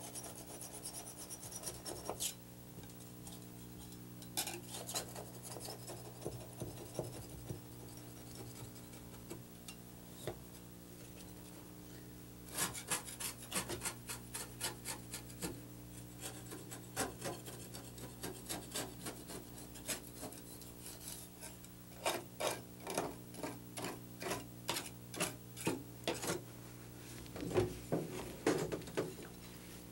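A small scraper blade scraping old caulk out of the joint between a bathtub rim and the wall tiles, cleaning the edge before it is resealed with silicone. It goes in runs of quick, short strokes with pauses between them.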